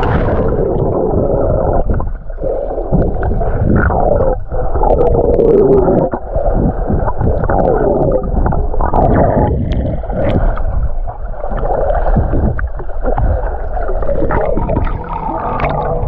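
Muffled underwater sound in the sea: air bubbles gurgling and water rushing as a swimmer moves underwater, with wavering swooping tones from the bubbles.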